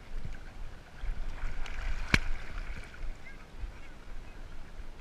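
Water sloshing and splashing around a camera strapped to a swimming dog, with a low rumble, and a single sharp knock about two seconds in.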